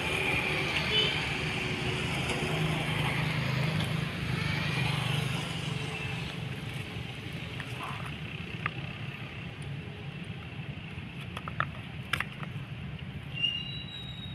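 Outdoor background noise: a steady low rumble like a motor running, loudest in the first few seconds and easing off after. A few short high chirps sound near the start and end, and scattered light clicks come in the second half.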